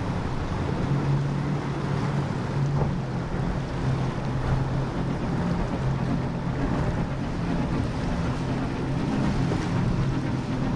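Powerboat engines running steadily at speed through the inlet, a low even drone, with water rushing and wind buffeting the microphone.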